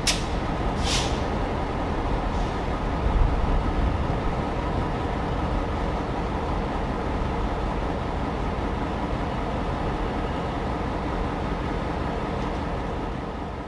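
Diesel locomotive sound, the engine running steadily with a deep rumble and a constant low drone; two sharp clicks near the start.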